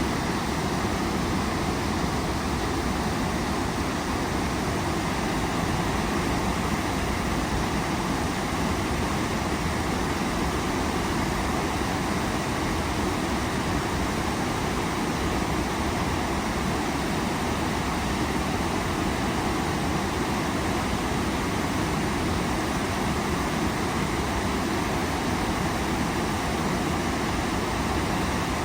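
Waterfall: an even, unbroken rush of falling water, deepest in the low end.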